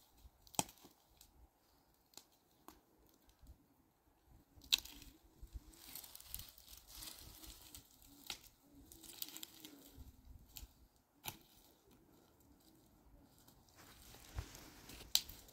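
Faint handling noises: scattered sharp clicks and snaps with stretches of rustling between them.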